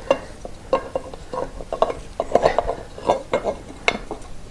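Irregular light metallic clinks, knocks and scrapes as a Royal Enfield Himalayan's front sprocket cover is handled and offered up to the engine case.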